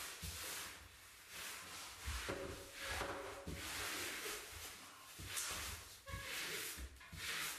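Pre-pasted vinyl wallpaper being unfolded and pressed up onto a ceiling: a series of rustling swishes of the pasted paper and of a smoothing brush drawn across it, with light knocks as it is pushed into place.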